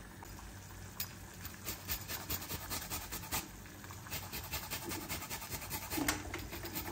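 Lemon peel being grated on a fine rasp grater: quick, repeated scraping strokes, a few a second, starting about a second in.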